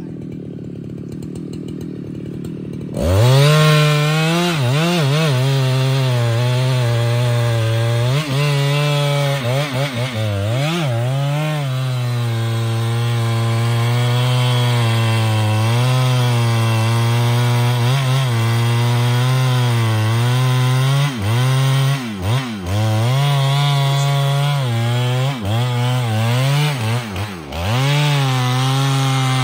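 Husqvarna 395XP 94 cc two-stroke chainsaw running low for the first few seconds, then opening to full throttle about three seconds in and cutting into a large trembesi (rain tree) trunk. Its engine pitch sags and recovers again and again as the chain bites into the wood.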